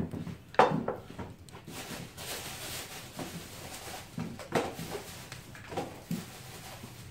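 Handling noise as glass spice jars are brought to the table: a few knocks and thumps, one about half a second in and two more around four and a half and six seconds in, with rustling between them.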